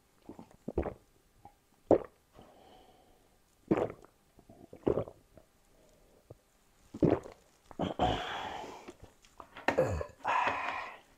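Person drinking water from a glass: separate gulps and swallows a second or two apart, louder and longer toward the end.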